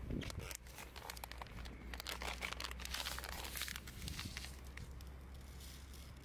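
Faint, irregular crackling and ticking of freshly fried tara-no-me tempura settling in a wooden bowl, densest in the first few seconds and thinning out.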